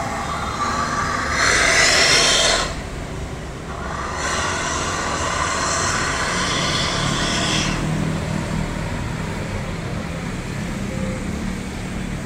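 Street traffic: a pickup with an aftermarket stainless-steel exhaust pulling away, with cars and motorbikes passing and two louder swells of passing vehicles, one about two seconds in and a longer one from about four to eight seconds.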